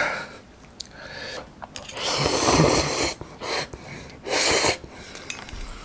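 A person slurping noodles from a bowl, close to the microphone. There is one long slurp about two seconds in, then shorter slurps.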